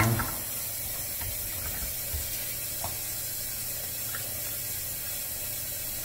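Frigidaire dishwasher running early in a heavy wash cycle after being started: a steady low hum with the rush of water inside the tub, and a few faint ticks.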